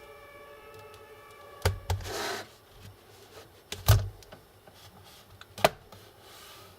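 Clicks and knocks of laptop parts and tools being handled during disassembly, four sharp ones and a short scrape about two seconds in, the loudest knock near the four-second mark. A faint steady whine in the first two seconds.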